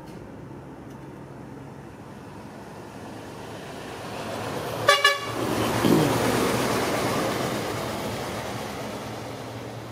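A road vehicle passes close by: its noise swells, it gives a quick double toot of its horn about halfway through, then it fades away.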